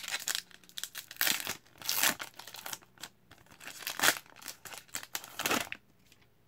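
A hockey card pack's wrapper being torn open and crinkled by hand as the cards are pulled out. It comes in irregular rustles and stops about a second before the end.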